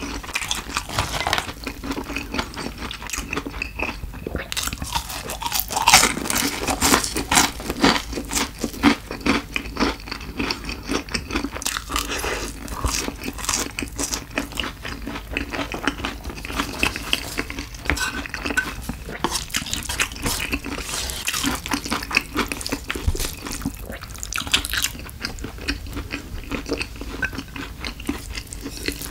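Close-miked chewing of crunchy fried food: a dense, irregular run of crisp crackles.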